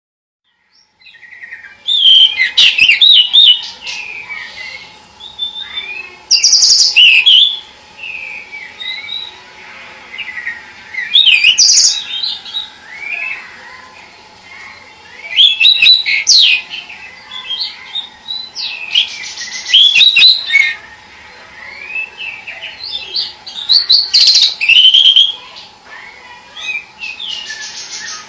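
Pied bushchat (decu kembang) singing: short, loud, high warbling phrases with quick up-and-down notes, repeated about every four to five seconds.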